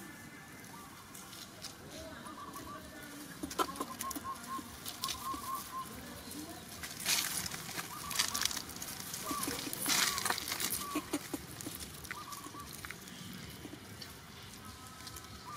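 Outdoor ambience with birds chirping in short repeated notes in the background, and a few brief bursts of dry leaves rustling near the middle.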